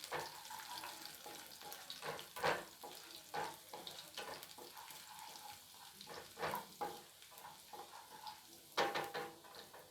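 Chopped garlic frying lightly in a little hot oil in a pan, a steady sizzle, with a utensil scraping and knocking against the pan at irregular moments as it is stirred.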